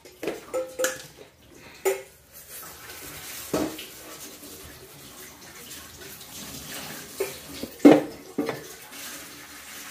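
Sugar poured in a steady hissing stream from a plastic container onto a heap of steamed vermicelli, with a knock about three and a half seconds in and a louder one near eight seconds.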